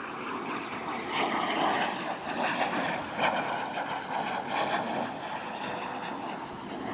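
A motor running steadily, with wind buffeting the microphone.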